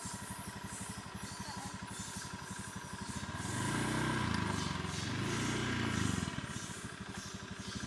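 Motor scooter engine idling with a fast, even beat, then revved from about three and a half seconds in, its pitch rising and falling twice.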